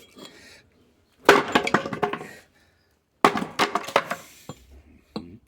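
Pieces of firewood clattering and knocking together in two bursts of rapid clicks, the first about a second in and the second a little past three seconds.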